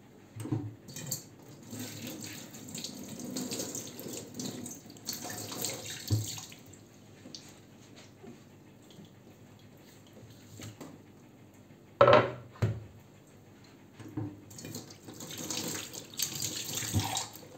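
Kitchen tap running into a sink with water splashing, in two spells, with a single sharp knock about twelve seconds in.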